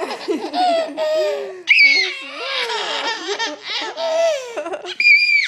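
Baby laughing hard in repeated bursts, breaking into high-pitched squeals about one and a half seconds in and again near the end. The belly laughter is set off by someone's pretend sneezes.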